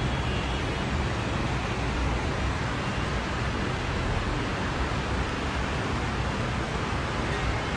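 Steady rushing noise of heavy rain and flood water, even and unbroken.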